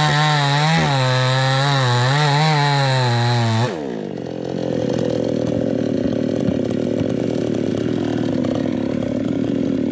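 New West 628 two-stroke chainsaw with a 24-inch bar running at full throttle while cutting into a thick sengon trunk, its pitch dipping and recovering under the load. A little under four seconds in, the throttle is released and the engine drops to a steady idle.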